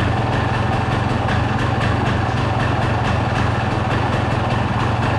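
Honda CR250R two-stroke single-cylinder engine running steadily at a constant speed. Its owner calls it a healthy run.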